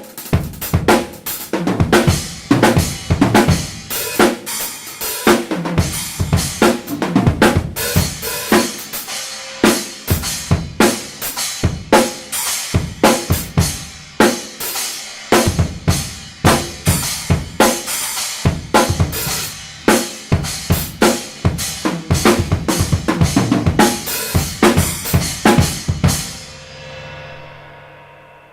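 Drum kit groove of snare, bass drum and a short, trashy Arborea Ghost 10-inch stacker cymbal played in the pattern. The playing stops near the end and the ringing dies away over a couple of seconds.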